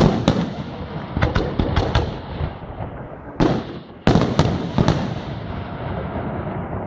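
Aerial firework shells bursting in quick succession, sharp bangs with echoing rumbles, in two dense clusters about a second in and again around four to five seconds in.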